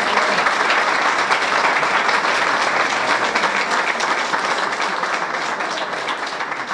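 Audience applauding steadily, beginning to die away near the end.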